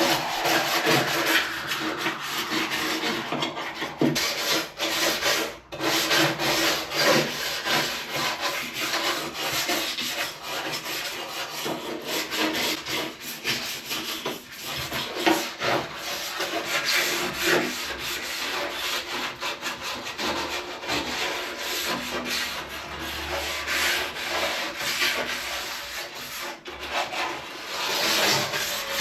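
Hand scraping and rubbing on the steel of a car door in irregular, repeated strokes, as old paint and seam sealer are taken back to bare metal.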